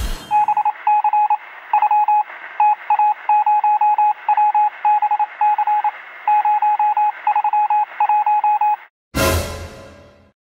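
A long string of short electronic beeps, all at one pitch, falling in uneven groups like Morse code, over a faint steady hum. Just after they stop, about nine seconds in, a sudden loud whoosh-and-hit that dies away over a second.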